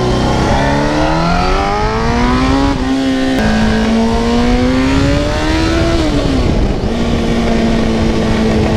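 1993 Honda CBR900RR's inline-four engine pulling hard under acceleration, heard from the rider's seat: the pitch climbs, dips about three seconds in and climbs again, then drops back around six seconds in and holds steady.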